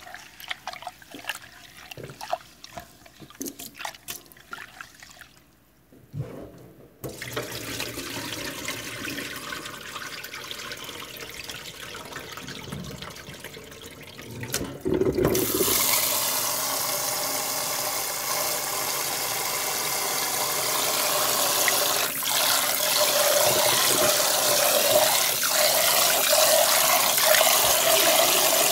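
Tap water running into a bowl of glutinous rice as it is rinsed. A few light splashes come first, then a steady stream starts, and it runs much harder from about halfway.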